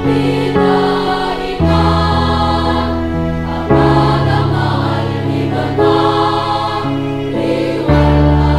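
Girls' choir singing together over sustained low accompaniment notes that change every couple of seconds.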